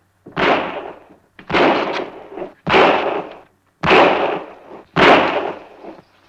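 Five gunshots about a second apart, each ending in a short echoing tail.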